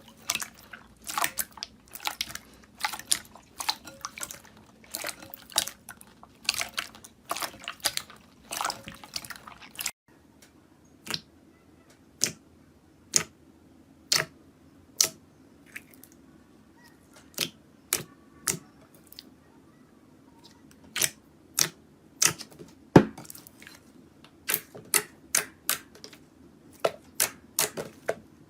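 Slime being squeezed and poked, making a string of sharp wet pops and clicks. About ten seconds in the sound changes to sparser pops, roughly one a second, which grow busier again near the end.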